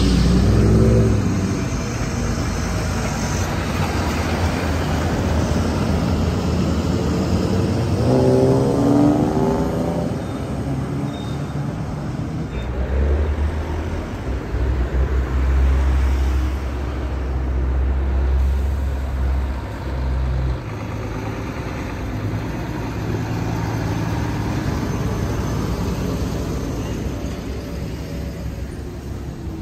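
Heavy-haul truck tractor's diesel engine running as it pulls a loaded low-loader trailer past, with tyre and road noise. A deep, steady engine drone dominates for several seconds in the middle.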